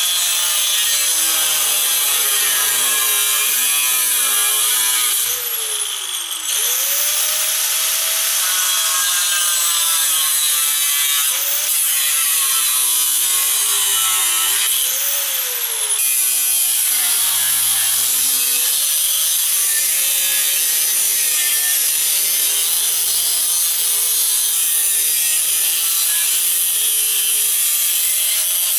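Angle grinder with a cut-off wheel cutting through the bent steel frame horn of a 1964 Impala's frame. It gives a loud, steady grinding whine whose pitch wavers as the wheel loads into the cut, sags and picks back up twice, and starts winding down at the very end.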